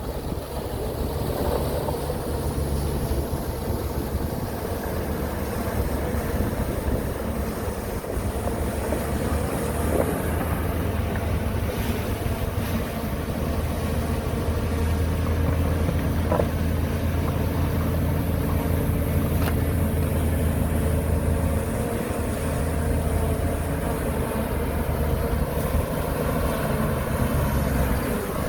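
Heavy diesel engine of earthmoving machinery running steadily, with a few light knocks.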